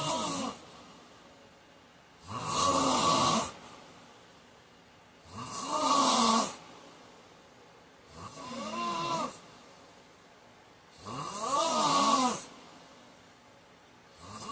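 A man snoring in his sleep: about four loud snores, each about a second and a half long, coming regularly about every three seconds. Each snore wavers in pitch, with quiet breathing between them.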